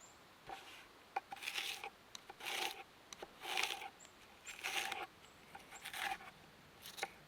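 Knife slicing through a crisp Honeycrisp apple: six crunchy, scraping cuts about a second apart.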